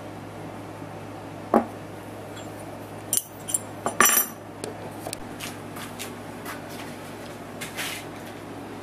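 Steel precision parallels and tools being lifted off an aluminium frame and set down on a wooden bench: a knock, then a few sharp metallic clinks with a brief ring about three and four seconds in, and lighter taps after, over a steady low hum.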